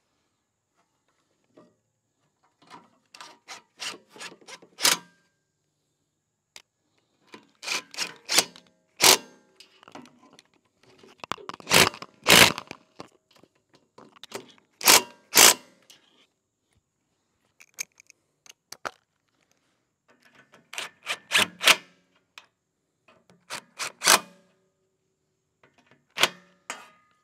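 Bursts of sharp metal clicks, knocks and scraping from a socket on a cordless drill/driver working the exhaust bolts of a riding mower's engine. The bursts come every few seconds, with short gaps between them.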